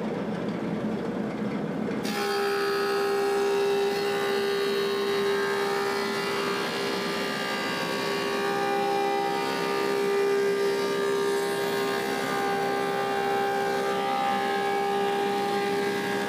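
Woodmaster 725 planer running, then about two seconds in its cutterhead starts cutting an elm slab. It keeps planing steadily under load with a sustained pitched note, taking a pass to flatten the slab's cup.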